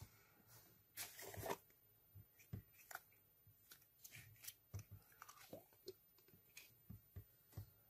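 Quiet handling of a plastic slime tub as green slime is pulled out of it: scattered soft clicks and crackles, with a longer rustling burst about a second in.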